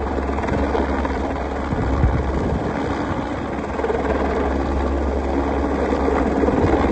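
Helicopter running steadily: constant rotor and engine noise, loud and even, heaviest in the low end.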